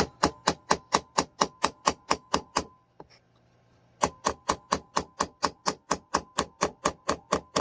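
Hammer tapping a small nail into a thin wooden birdhouse piece: quick, light, even blows, about four a second, with a faint ring under them. The blows stop for just over a second a little under three seconds in, then start again.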